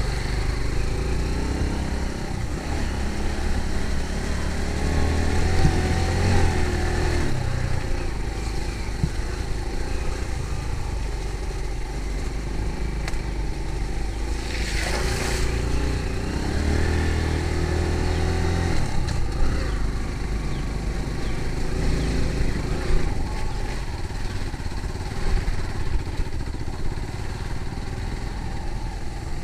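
A motor vehicle engine running steadily, its pitch shifting up and down a few times, with a brief hiss about halfway through.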